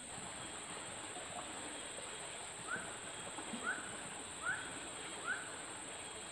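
An animal calling: four short, rising chirps about a second apart, beginning about halfway through, over a steady background hiss.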